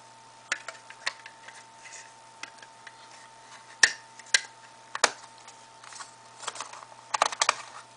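Handling clicks and knocks of a cased iPhone being fitted into a belt-clip holster: scattered sharp clicks, with a quick cluster of them near the end.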